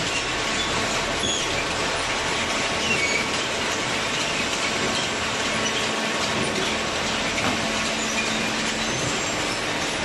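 Hydraulic waste-paper baler machinery running: a steady mechanical din with faint, brief high squeaks and rattles.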